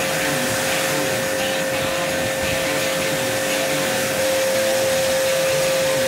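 H&L QL-1200 electric pressure washer running and spraying: a steady hiss of the water jet over an even motor hum.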